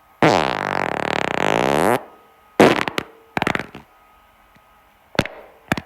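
A person farting: one long, pitched, buzzing fart of nearly two seconds, then two shorter sputtering ones and two brief blasts near the end.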